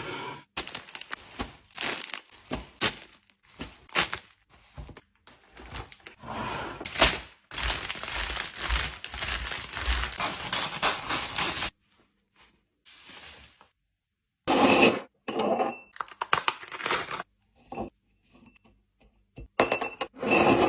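Drink containers and sweet packets being handled and set down while a fridge is stocked: a run of clinks, knocks, taps and scrapes. In the middle there is a steadier rustling noise lasting about four seconds.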